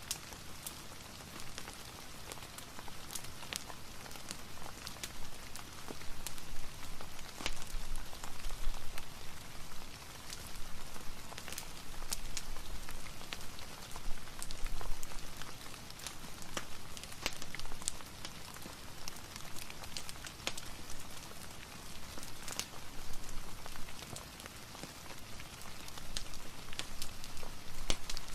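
Steady rain ambience mixed with a crackling fireplace: an even hiss of rain swelling and easing every few seconds, dotted with scattered sharp crackles and drips.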